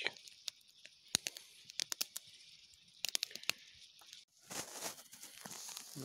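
Campfire of dry twigs and split wood crackling, with many sharp, irregular pops over a steady hiss. About four seconds in the sound breaks off, and a denser rustling crunch follows.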